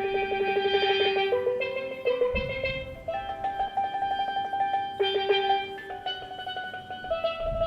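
Steel pan music: melody notes played as quick rolls on the pan, with a low drum beat now and then.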